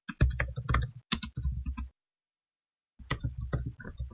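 Typing on a computer keyboard: quick runs of keystrokes that break off for about a second midway, then start again.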